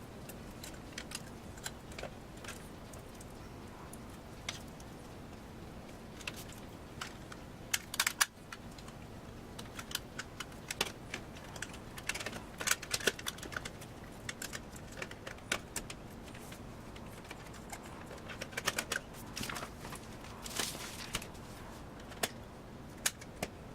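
Irregular light clicks and taps of small plastic and metal computer parts, cables and connectors being handled inside a PC case, coming in small clusters over a steady faint hum.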